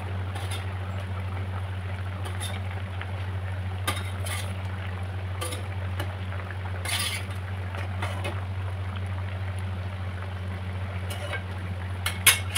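Egg and spinach curry bubbling in an aluminium kadai while a metal spatula clinks and scrapes against the pan now and then, with the sharpest clinks near the end. A steady low hum runs underneath.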